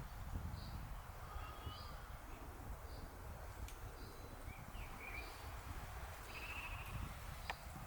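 Wind rumbling on the microphone, with birds calling in the background: a short high note repeated about once a second, plus an occasional brief trill. A single click sounds near the end.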